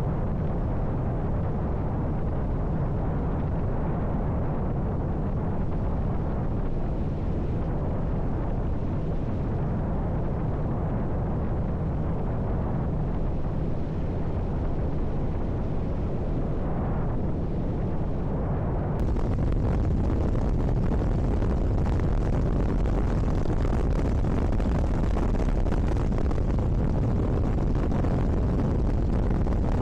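Steady rush of wind and road noise on a motorcycle riding at speed, heard from a camera mounted on the bike, with a deep low rumble. About two-thirds of the way in it steps up suddenly, a little louder and brighter.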